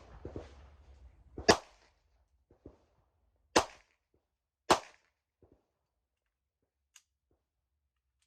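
Three loud handgun shots, irregularly spaced about two seconds and then one second apart, with fainter pops between and after them.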